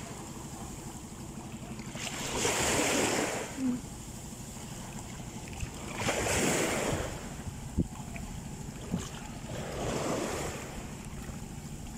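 Sea water swishing in three slow swells, each about a second long, roughly every three and a half seconds, with wind on the microphone and a few light knocks.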